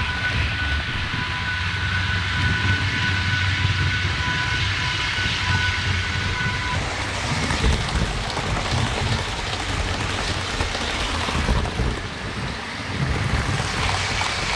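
HO-scale electric model trains running on the layout track: a steady rolling rumble of wheels on rails with the high whine of the locomotive motors. One whine stops about halfway through, and a higher one starts near the end.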